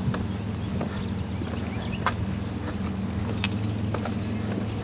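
Footsteps on stone steps, short scattered clicks, over a steady low hum and a thin high whine that breaks off a few times.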